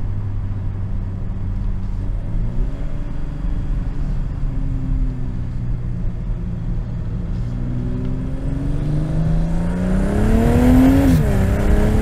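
BMW M240i's 3.0-litre B58 turbocharged straight-six running at low, steady revs, then accelerating: the pitch climbs over the last few seconds and drops suddenly near the end as the 8-speed automatic shifts up.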